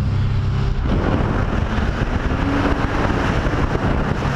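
Nissan 240SX's KA24DE four-cylinder engine running as the car drives, a steady low drone at first; about a second in it gives way to a louder rush of wind and engine noise, with a rising engine note midway as the car speeds up.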